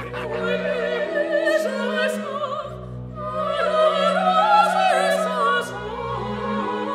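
Operatic music: a singer's voice with strong vibrato holding long notes over orchestral accompaniment.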